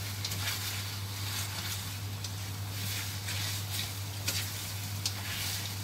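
Chicken pieces in tomato sauce sizzling in a stainless-steel wok while a slotted spatula stirs them, with an occasional scrape of the spatula against the pan. A steady low hum runs underneath.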